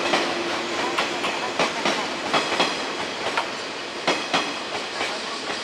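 A train rolling slowly past on the rails, its wheels clicking over rail joints, often in close pairs, fading gradually.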